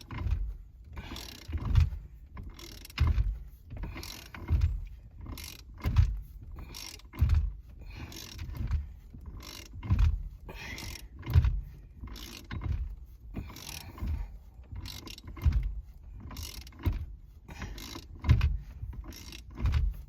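Hand ratchet wrench turning out a stubborn bolt in a steering column in repeated strokes, about one every second and a half, each stroke a low thump followed by the ratchet's clicking on the return. It takes a lot of turning, but the bolt is coming loose.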